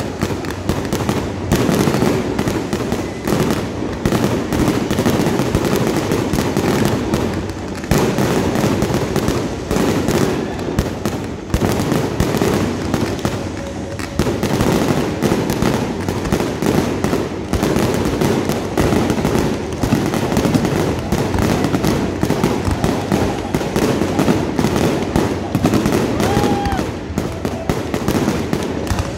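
Fireworks display: a rapid, continuous barrage of aerial shell bangs and crackling, with hardly a break.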